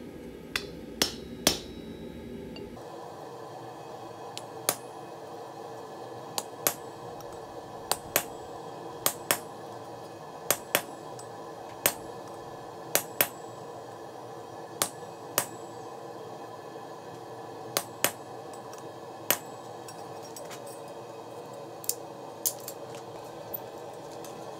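Hammer striking a chisel held on the red-hot rebar jaw of a pair of tongs to cut teeth into it. Sharp metallic strikes with a short ring, often in pairs, a second or two apart.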